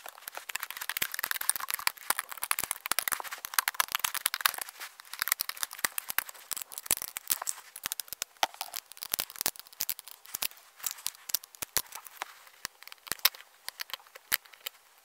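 Rubber bands scraping and snapping off the plastic pegs of a bracelet loom as a finished rubber band bracelet is pulled off: a dense run of small clicks and crackles that thins out in the second half.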